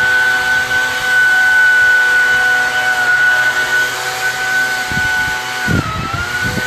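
A small motorized machine running steadily with a high whine; the pitch dips briefly about six seconds in, as a low rumble comes in near the end.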